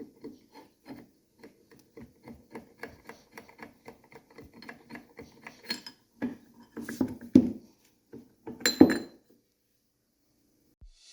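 Hand tools working on a two-stroke engine during teardown: a steady run of light clicks or taps about four a second, then a few louder, irregular metal knocks before it stops.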